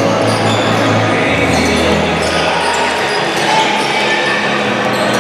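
A basketball bouncing on the hardwood court of a sports hall during a game, with players' and onlookers' voices echoing around the hall.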